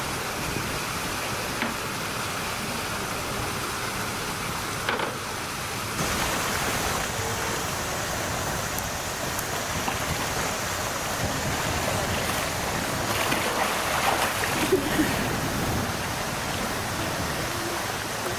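Steady rush and splashing of pool water, with a California sea lion churning the surface at the pool's edge.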